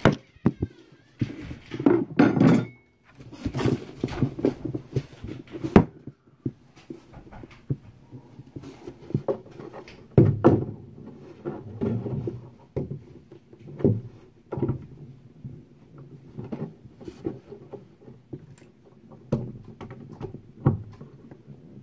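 Irregular knocks, thunks and scuffing handling noise, as of hardware and wood being handled while a closet rod socket plate is fitted.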